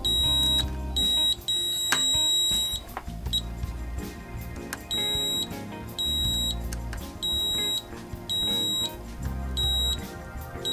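Digital multimeter's continuity beeper sounding in about a dozen short, irregular beeps, one held longer about two seconds in, as the test probes touch parts on a plasma TV Y-main board. The beeps mean the parts read near zero ohms: the zener diodes there are shorted.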